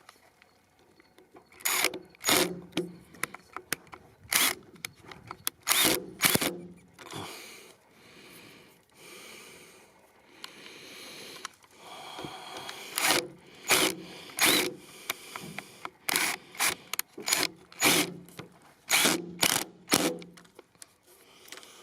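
Irregular sharp hammer taps on the wooden edge of a door, fitting the lock's latch into its chiseled recess. There are two runs of strikes with short pauses, and a quieter stretch of faint scraping between them.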